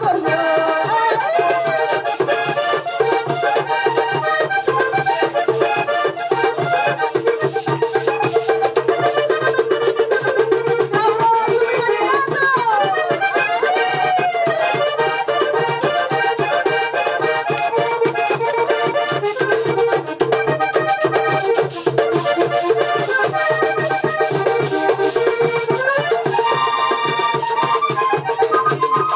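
Vallenato accordion playing a fast instrumental passage over steady, quick hand percussion.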